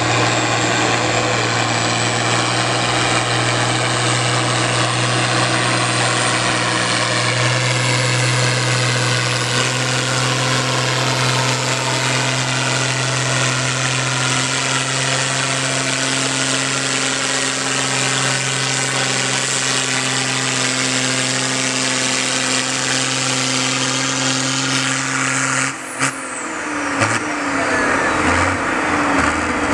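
John Deere 4455 tractor's six-cylinder turbo diesel running hard under load, pulling a weight-transfer sled: a loud, steady drone that rises a little in pitch partway through. Near the end the engine note drops away suddenly, and a high whine falls off with it.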